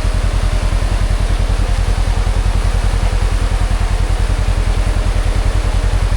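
Polaris Ranger 1000XP side-by-side's engine idling steadily with an even low pulse.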